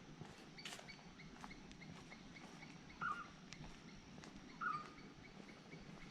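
A bird calling twice, each call a short, clipped chirp, about a second and a half apart, over faint steady outdoor background noise with scattered light clicks.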